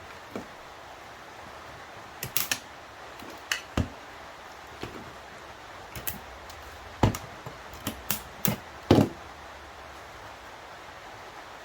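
Irregular clicks and knocks of hand tools and small hard parts being handled while a seatbelt pretensioner mechanism is dismantled, the loudest about two-thirds of the way through.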